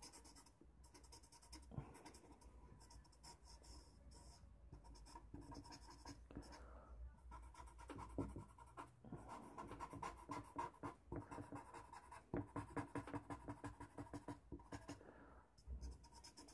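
Paper blending stump (esfumino) rubbing charcoal into drawing paper: faint scratchy strokes, becoming quicker and louder from about halfway through as it works back and forth over the shading.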